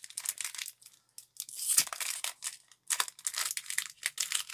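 Foil booster-pack wrapper being crinkled and torn open by hand: irregular crackling, a brief pause around one second, a longer tear just before two seconds, then rapid crinkling near the end.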